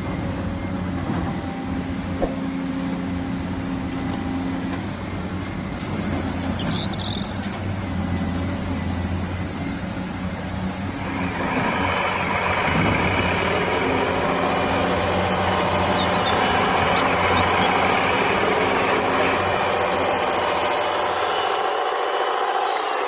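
A steady, engine-like vehicle sound running throughout. About halfway through, a louder, higher whirring layer joins it.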